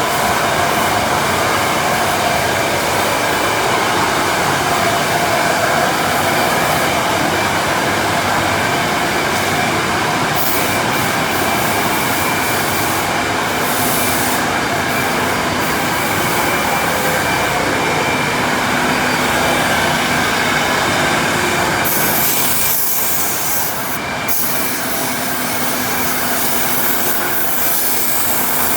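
Sawmill saw running loud and steady as it cuts lengthwise through a very large ash log, with a high whining edge. About 22 seconds in, the sound changes to more hiss with a brief dip, then the steady cutting noise continues.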